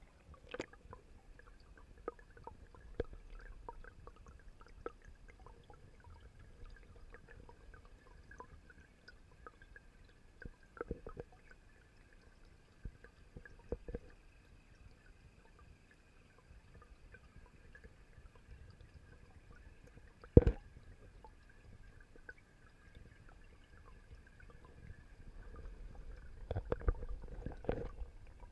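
Muffled underwater sound picked up by a camera submerged in a garden pond: a faint steady hum with scattered small clicks and knocks. A sharp knock comes about two-thirds of the way through, and louder low rumbling knocks come near the end.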